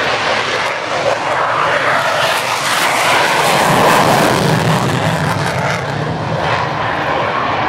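An F-16 fighter jet taking off, its engine's loud roar building to a peak about halfway through as the jet passes, then easing slightly.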